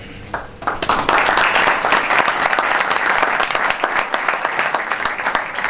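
Audience applauding. It starts with a few scattered claps, swells into dense clapping within the first second and dies away near the end.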